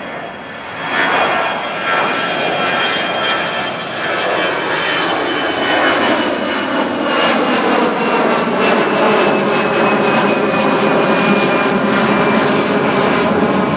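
Airbus A320's twin CFM56 turbofan engines at climb thrust after takeoff: a loud, steady jet roar that swells in the first second, with a high whine that slowly falls in pitch as the airliner passes and climbs away.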